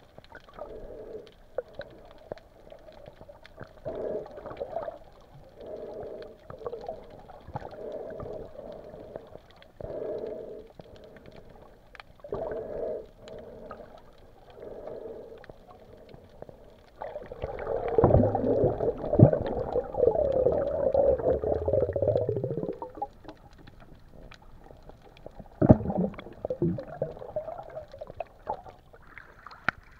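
Muffled underwater sound picked up by a camera held below the surface: a wavering hum that swells and fades every second or two, with water gurgling. From about 17 to 23 seconds in there is a louder, rougher churning, and a sharp knock comes about 26 seconds in.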